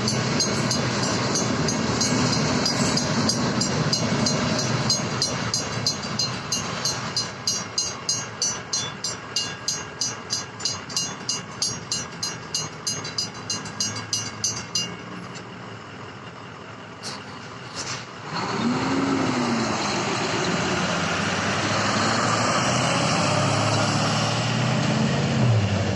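Western-Cullen-Hayes mechanical crossing bells dinging about three times a second over the rumble of a passing train, stopping about fifteen seconds in, which signals that the gates are rising. A few seconds later loud road vehicles pass, an engine pitch rising and falling.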